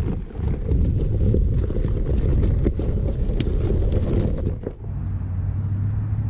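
Jeep Wrangler's tyres crunching and crackling over loose rock and gravel on a trail, with the engine running and wind buffeting the microphone. About three-quarters through it cuts off suddenly to a steady low hum.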